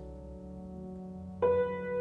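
Grand piano notes ringing on in sustained, overlapping tones over a low hum. About one and a half seconds in, a new note sounds sharply and keeps ringing.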